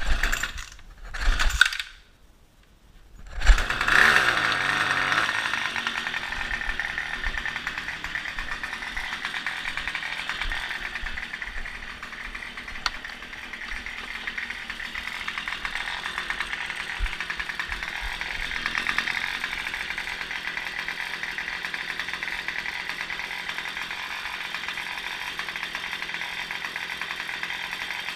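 Small gas string trimmer (weed wacker) engine being pull-started: two short pulls on the recoil starter, then it catches about three and a half seconds in and keeps running steadily with a high buzz.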